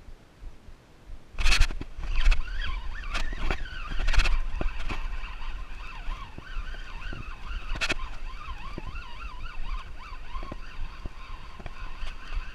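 Penn Spinfisher spinning reel being cranked against a hooked fish, its gear whine wavering in pitch with the turns of the handle. Its onset about a second and a half in comes with several loud knocks and rushes of noise.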